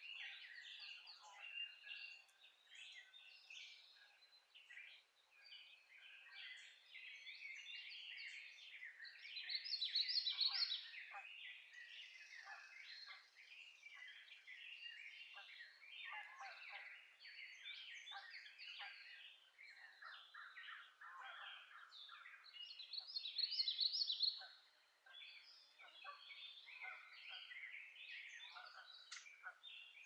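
Spring dawn chorus of many songbirds singing at once, a dense tangle of overlapping chirps and warbles. Two louder, higher bursts of song stand out, about a third of the way in and again near the end.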